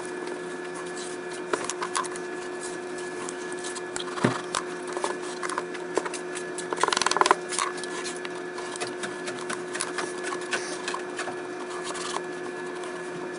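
Small clicks, taps and scrapes of hand work with felt and glue in a wooden toolbox drawer, over a steady hum. There is a short louder rustle about seven seconds in.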